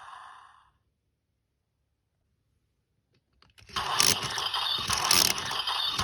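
Electronic sound effect from a DX Chilsonite Sword toy's speaker fading out. After a silent pause, a few plastic clicks of the toy's mechanism are followed by a loud new sound effect, the toy's 'Raiden's Finish' special-move sound.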